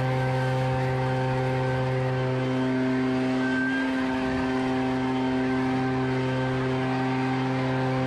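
Leaf blower running continuously at a steady pitch, blasting dry leaves off a wooden deck.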